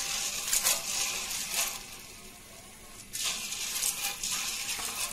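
Soaked kidney beans being rubbed and swished by hand in water in a steel bowl, rattling and clinking against the metal in bursts, with a quieter pause about two seconds in.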